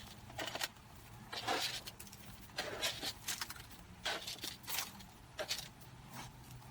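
Chicken manure pellets being sprinkled onto soil: a string of short, irregular rattling patters, one every half second to a second.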